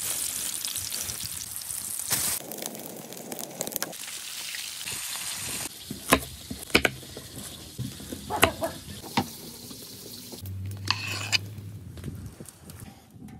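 Pike pieces sizzling as they fry in a pan, a steady hiss for the first five seconds or so. Then a knife knocks sharply on a wooden cutting board as vegetables are cut, several separate strikes.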